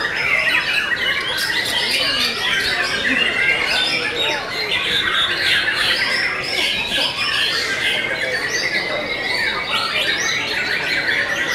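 White-rumped shamas (murai batu) singing: several birds at once in a dense, unbroken stream of quick, varied whistled phrases that overlap throughout.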